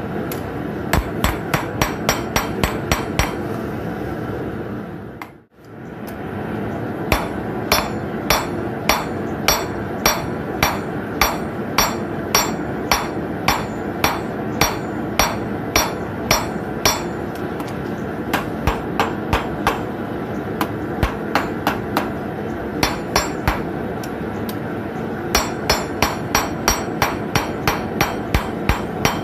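Hand hammer striking a red-hot 7-inch common nail on a steel anvil, forging it flat. About two blows a second, each with a bright ring from the anvil, in runs broken by short pauses; the blows come faster near the end. A steady background noise runs underneath.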